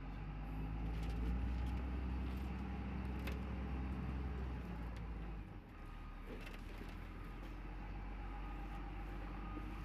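Truck engine running with a steady low drone, louder over the first five seconds, then dropping off sharply about five and a half seconds in before running on at a steady lower level.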